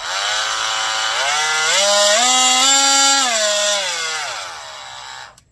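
TACKLIFE 20V cordless oscillating multi-tool running with a loud buzz, its pitch stepping up, holding, then stepping back down before it cuts off near the end.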